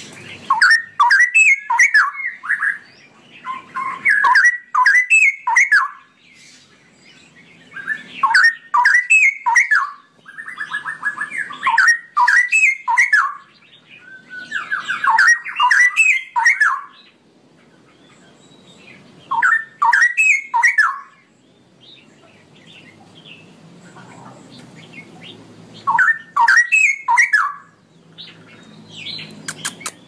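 Straw-headed bulbul (cucak rowo) singing its loud, bubbling warbled song in repeated phrases of about two seconds, separated by short pauses, with a longer pause about two-thirds of the way through.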